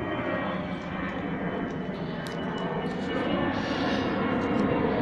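Bajaj Pulsar 220F's single-cylinder engine running steadily at idle, getting slightly louder toward the end.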